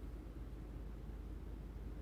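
Quiet room tone: a faint steady low hiss, with no distinct events.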